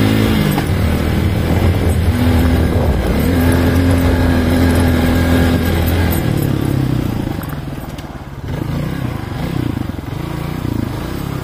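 Motorcycle engine running at a steady speed along a dirt track. About six seconds in it eases off and gets quieter as the bike slows, its revs wavering.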